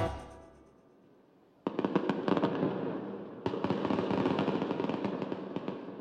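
The music dies away, and after about a second and a half of near silence a dense crackling, popping noise starts suddenly. It surges again about two seconds later.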